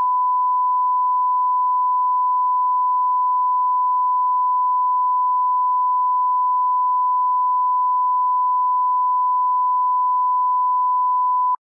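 Steady 1 kHz sine-wave line-up tone, the reference tone that runs with colour bars at the head of a broadcast master for setting audio levels. It holds one unchanging pitch and level and cuts off suddenly near the end.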